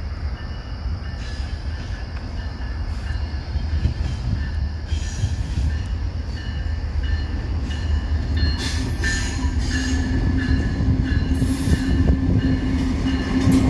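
Diesel-hauled intermodal freight train approaching and starting to pass, its low rumble growing steadily louder, with a thin wheel squeal coming and going and hissing bursts in the second half.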